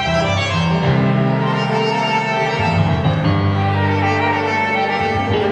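Tango played by a small ensemble of violin, double bass, bandoneons and piano. The violin carries a slow melody in long held notes over sustained bass notes.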